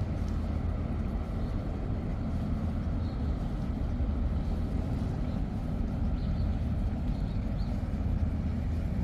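Steady low engine rumble of a vehicle, starting abruptly and holding even throughout.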